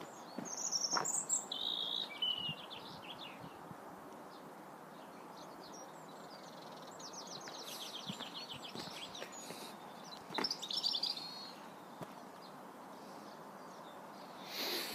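Songbirds singing: several short, high, rapid trilling phrases, with one longer trill about halfway through, over a faint even background hiss.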